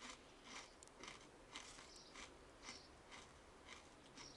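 Faint, steady chewing of a mouthful of crunchy Nature Valley organic cereal, about two crunches a second.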